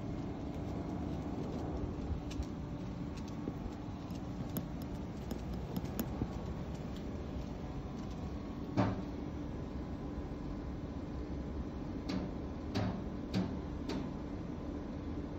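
Steady outdoor background hum, typical of distant traffic, with scattered light clicks and taps: a sharper knock about nine seconds in and a few more near the end.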